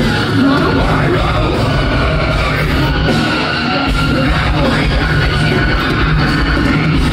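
Live heavy rock band playing loud, dense music with yelled vocals, heard from inside the crowd in the pit. The bass drops away briefly about three seconds in, then comes back.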